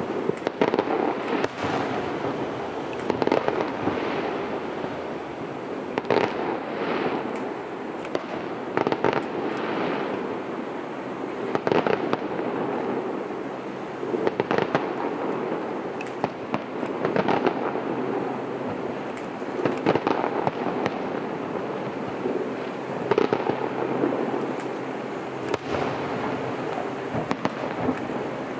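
Aerial firework shells bursting: a sharp bang every two to three seconds, each trailing into an echo, with a steady crackle and rumble of further bursts between them.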